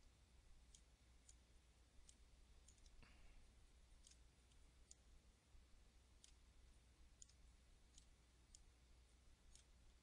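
Near silence with about a dozen faint, spaced-out computer mouse clicks over a low steady hum.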